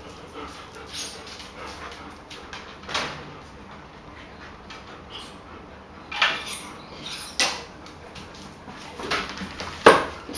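German Shepherd dog and puppy playing with balls on a tiled floor: a series of short, sharp knocks and scuffs, the loudest just before the end.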